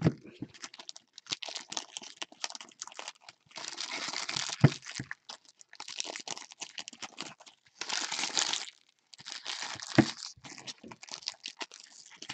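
Foil trading-card pack wrappers crinkling and rustling in gloved hands, in bursts with short pauses, with a few sharp taps along the way.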